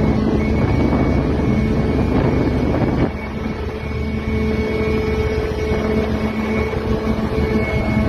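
Backhoe dredger's machinery running with a steady drone, over heavy rushing and splashing water as the loaded bucket rises out of the sea. The water noise is strongest for the first three seconds, then falls back, leaving mainly the drone.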